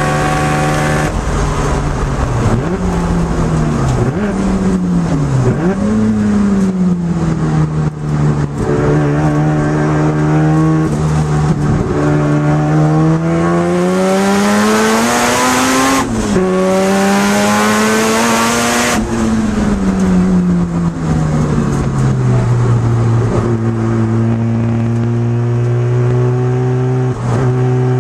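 Turbocharged 13B rotary engine of a Mazda RX-7 FC3S heard from inside the cabin, pulling hard on track with revs rising and falling through the corners. About 16 seconds in the pitch drops sharply and climbs again, as at an upshift. A loud hiss rises over the engine for about five seconds in the middle and cuts off suddenly.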